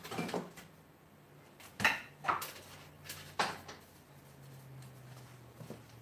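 Several knocks and clatters of kitchen items being handled while a Magic Bullet blender is fetched: one at the start, two close together about two seconds in, and one more a second later. A faint steady low hum lies under them.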